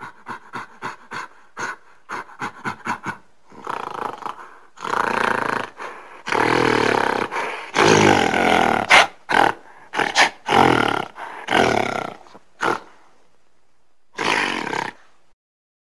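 Gorilla calling: a run of about a dozen short, quick calls over the first three seconds, then a series of longer, loud roars, with one more near the end.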